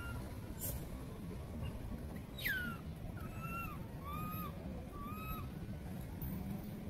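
A monkey calling: one high call that drops sharply in pitch about two and a half seconds in, then three short rising-and-falling coos about a second apart, over a steady low rumble.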